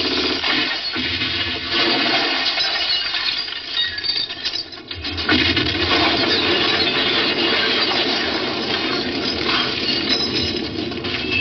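Action-film soundtrack: music under continuous loud crashing and clattering, as of breaking glass and falling debris.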